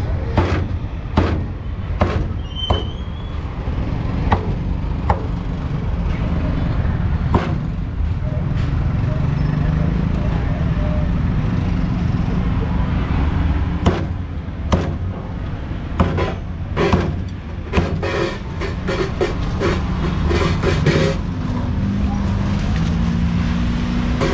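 Meat cleaver chopping crocodile meat on a thick wooden chopping block: single sharp chops every second or so, then a quick run of chops about two-thirds of the way through. A steady low rumble of street traffic runs underneath.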